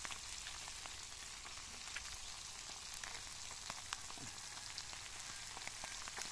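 Baung catfish and its roe frying in hot oil in a wok: a steady sizzle scattered with small pops and crackles.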